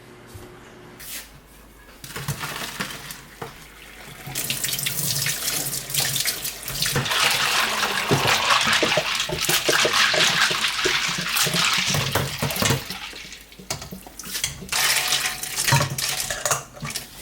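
Kitchen tap running water into a sink, starting about two seconds in, running hardest through the middle and easing off before it stops near the end, with a few light clatters.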